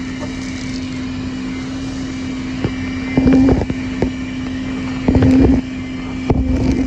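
Small 12-volt Road Pro wet/dry canister vacuum running with a steady motor hum and whine. Louder, rougher bursts come about three seconds in, again about five seconds in, and near the end as the nozzle works over a surface.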